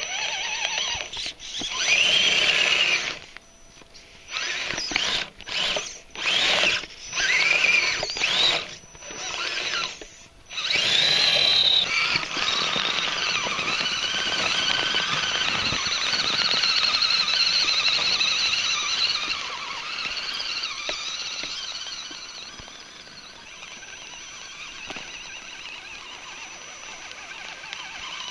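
Electric motor and drivetrain of a tracked RC crawler truck whining as it is driven. For the first twelve seconds or so it comes in short on-off throttle bursts, with the pitch rising and falling. After that it runs on steadily, then eases to a lower level over the last few seconds.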